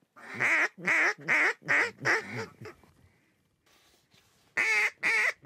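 Mallard duck call blown by a hunter: a quick string of loud quacks, a pause of about two seconds, then a second string starting near the end.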